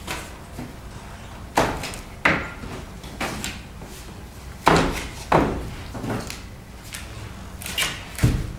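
Wooden picture frames of large framed paintings knocking against one another as they are tipped forward through a leaning stack and set back: three pairs of sharp clacks.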